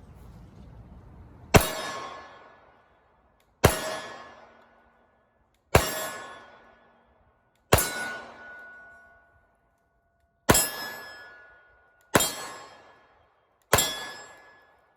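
Seven pistol shots from a Glock 21 Gen 4 in .45 ACP, spaced about two seconds apart, each one followed by the clang of AR500 steel targets ringing and dying away.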